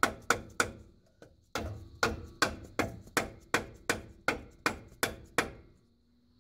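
Hammer tapping the new pinion flange down onto the splined pinion shaft of a 2007 Nissan Titan's front differential to seat it. Steady strikes come about three a second, with a pause of about a second near the start.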